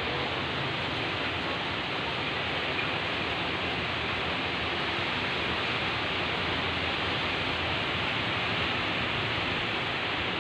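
Heavy rain falling: a steady, even hiss of downpour with no breaks.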